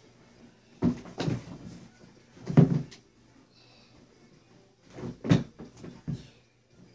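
About six short knocks and thumps of household things being moved and set down, in three clusters: two about a second in, the loudest at about two and a half seconds, and three more between five and six seconds.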